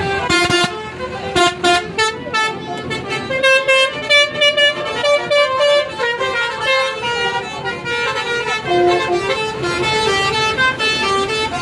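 Indonesian 'telolet basuri' multi-tone bus horn playing a fast tune: a string of clear horn notes that change pitch several times a second, with a few loud blasts in the first couple of seconds.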